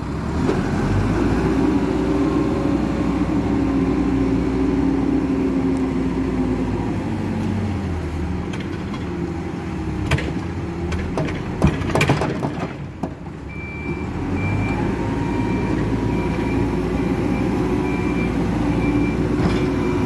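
Hidromek 102B backhoe loader's diesel engine working hard, its pitch shifting with the load. Around halfway, sharp knocks and clatter as the front bucket tips soil into the steel bed of a dump truck. After that, a reversing alarm beeps steadily as the loader backs away.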